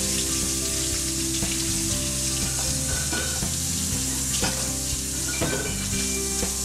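Kitchen tap running steadily into a stainless steel sink, the stream splashing over hands rinsing saffron milk cap mushrooms. Background music plays underneath.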